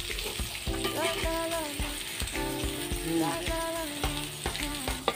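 Potato and pointed gourd pieces sizzling in hot oil in a metal kadai, with a metal spatula scraping and knocking against the pan in short clicks. A melody of background music plays over the frying.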